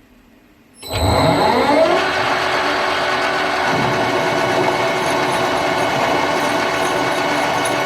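Metal lathe started about a second in: the motor and spindle spin up with a rising whine, then run steadily with a high-pitched whine, turning a slightly unbalanced workpiece at reduced spindle speed for boring.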